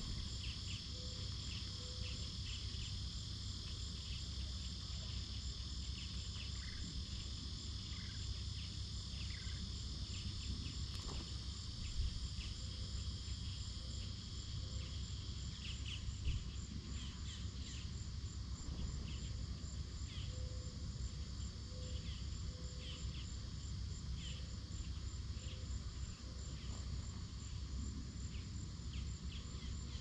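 Steady outdoor insect chorus, cricket-like, with a high, rapidly pulsing trill over a low background rumble; short faint chirps come and go throughout.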